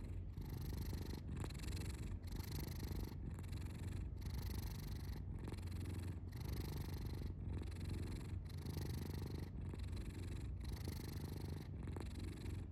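Domestic cat purring steadily. The purr dips briefly about once a second as the cat breathes in and out.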